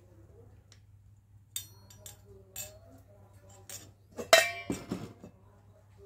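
Dishes and a metal spoon clinking: a few light clinks, then a louder ringing clatter of several hits about four seconds in, as a ceramic plate of rice with a metal spoon is set down beside a bowl on a plywood floor.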